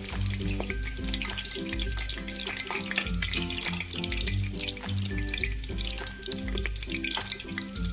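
Food frying in hot oil in a cooking pot, with a steady crackling sizzle and the sounds of stirring, over background music with a stepping bass line.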